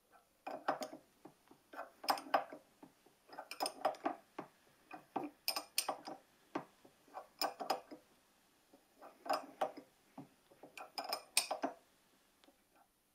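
Hand tool working an aluminium block fitted with a square steel bar: about seven short bursts of rapid metallic clicking and scraping, separated by brief pauses.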